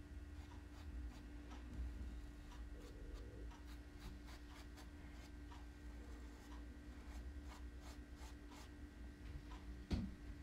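Fine paintbrush flicking short strokes of paint onto a fabric bag: faint, scratchy brushing, repeated every second or so, over a low steady hum. A small knock near the end.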